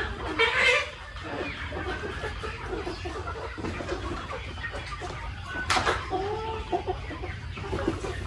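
A flock of young chickens clucking and calling, many short overlapping calls. A single sharp click sounds a little past halfway, followed by a longer rising-and-falling call.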